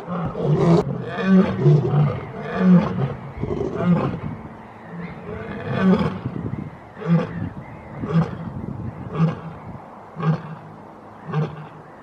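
Lion roaring: a string of loud roars in the first half, then shorter grunting calls repeated about once a second and getting quieter.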